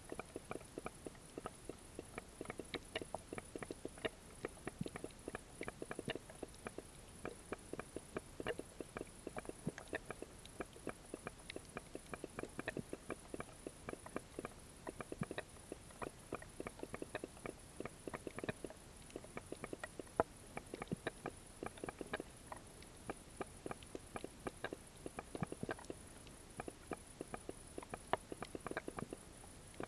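Underwater crackle: a dense, irregular stream of small sharp clicks and ticks, heard through a submerged camera.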